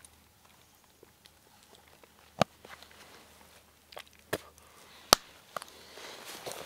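Three sharp clicks, the last the loudest, as a small round tin is handled and tapped in the hands, with a few fainter ticks between. Clothing starts to rustle near the end.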